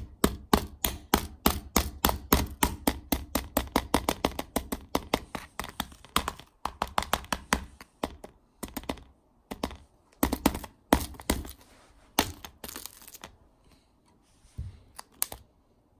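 Ball-peen hammer tapping on the cracked glass screen of an iPhone 4, a quick run of light metal-on-glass strikes at about four a second. After about eight seconds the strikes thin out to scattered single taps, then stop.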